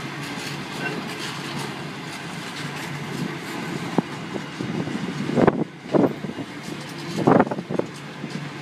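Intermodal container train's wagons rolling past at close range: a steady rumble of wheels on rail, with a sharp click about four seconds in and a few louder thumps in the second half.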